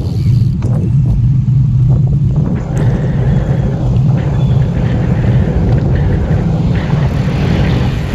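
Steady low rumble of wind buffeting the microphone of a handlebar-mounted camera on a road bike riding at speed, mixed with road and tyre noise.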